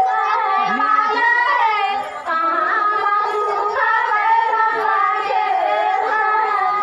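A group of women singing a Karma Puja folk song together, a high, continuous melody.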